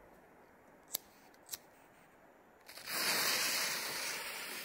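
Two short sharp clicks, then about two and a half seconds in the lit fuse of a Tai Pan Dark Angel V firework rocket catches and hisses steadily, spraying sparks at the base of the launch tube before lift-off.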